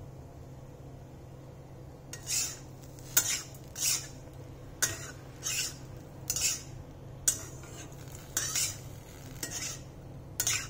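Flat steel spatula scraping and tossing cooked rice around a black kadai. About ten short scrapes come roughly one a second, starting about two seconds in, some with a sharp clack of metal on metal.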